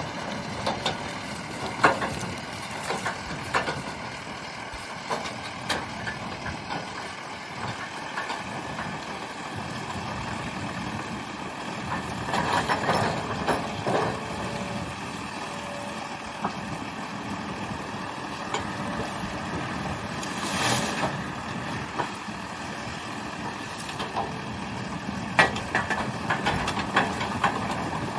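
Tracked excavator's engine running steadily as it works, with scattered knocks and clanks and a few louder surges in the engine noise.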